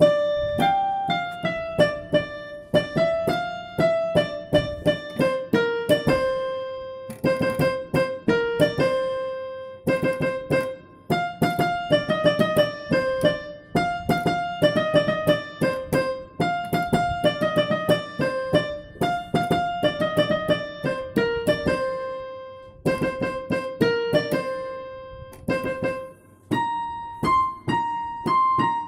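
Background music: a piano or electric-piano melody of quickly struck notes in a repeating phrase.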